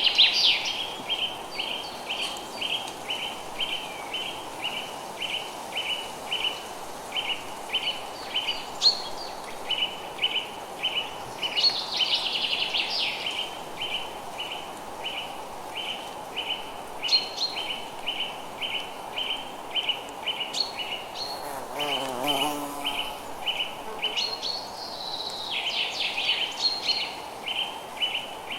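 Songbirds calling: one repeats a short high chirp a couple of times a second throughout, while others break in every few seconds with brief, higher, faster trills. A steady soft hiss of rain runs underneath.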